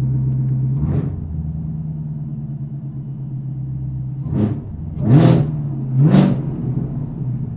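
Chevrolet Camaro ZL1's supercharged 6.2-litre V8 idling with a freshly fitted Rotofab cold air intake, blipped a little about a second in, then revved three times in quick succession, the last two sharpest and loudest.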